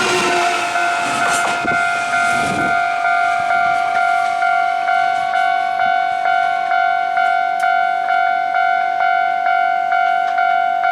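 Japanese level-crossing warning bell ringing in a steady electronic ding-ding, about two and a half strikes a second. An electric train's rumble and rattle over the crossing dies away about three seconds in, while the bell keeps ringing.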